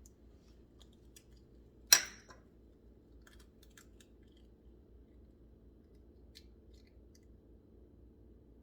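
An egg cracked sharply against the rim of a bowl about two seconds in, followed by a few faint clicks and taps of shell being handled while the whites are separated.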